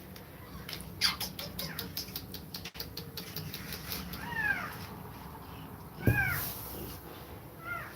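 Kittens mewing while nursing: three short, high, arched mews, the loudest about six seconds in. A quick run of clicking sounds comes in the first few seconds.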